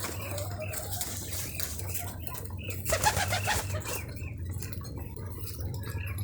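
Domestic pigeons cooing in a loft, with scattered wing flaps and scuffles, a busier patch about three seconds in, over a steady low hum.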